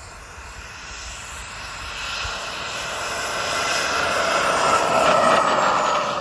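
Behotec 220 turbine jet engine of a scale RC F-4 Phantom running through its landing approach and touchdown. The whine grows steadily louder as the jet comes in, is loudest about five seconds in as it passes close, and drops in pitch as it goes by.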